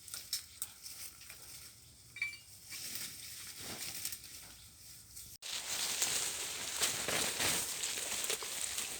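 Crunching and crackling of footsteps through forest litter of leaves and twigs, in irregular small clicks. It breaks off abruptly about five seconds in and resumes louder with a denser rustle.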